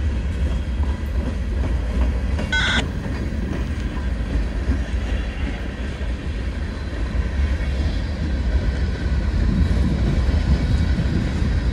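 Freight cars of a CSX train rolling past, wheels clicking over the rail joints, with a heavy wind rumble on the microphone. A brief high squeal sounds about two and a half seconds in.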